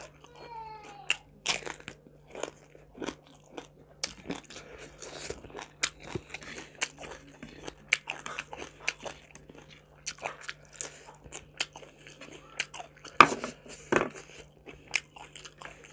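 A person chewing crunchy food close to the microphone: a run of sharp crunches and wet mouth sounds, with two louder crunches near the end.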